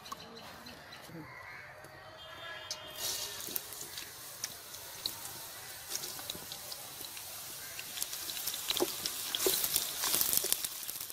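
Sliced onions dropped into hot oil in a steel kadai and sizzling. The sizzle starts suddenly about three seconds in. Near the end a wooden spatula scrapes and knocks against the pan as the onions are stirred.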